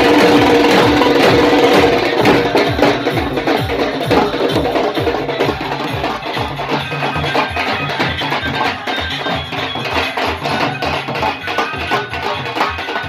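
Folk-style music driven by fast, steady drum beats. It is loudest in the first two seconds, where held tones sound over the drumming; after that the drums carry on more thinly.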